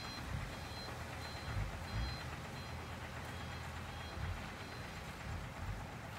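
Ten-wheel dump truck's reversing alarm giving short, repeated high beeps over the low, steady running of its diesel engine as the truck backs up.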